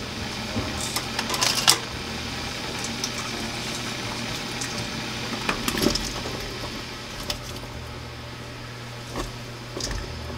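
Water boiling and bubbling in a pan, with sharp metallic taps and clicks of a mesh strainer against the pan as sliced ginger is dropped in to blanch.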